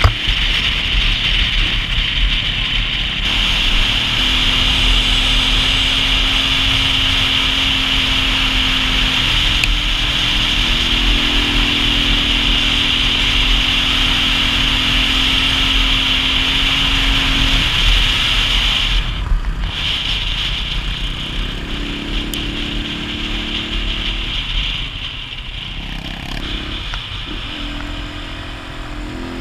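Single-cylinder dual-sport motorcycle engine running under way, with rushing wind noise. The engine pitch holds steady, then steps up and down a few times, and the sound eases off somewhat in the second half.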